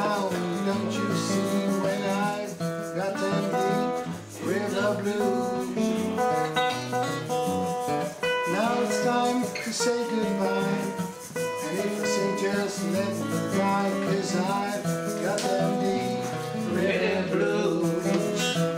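Steel-string acoustic guitar played steadily through a folk song, with a voice singing along in places.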